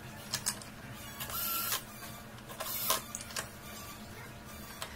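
Hand tools and parts handled on a workbench: scattered clicks and knocks as a cordless drill is set down on the table, with two short scraping bursts in the middle.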